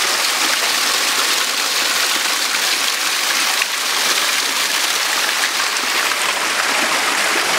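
Small waterfall spilling over boulders and splashing into a shallow rocky pool, a steady rush of falling water.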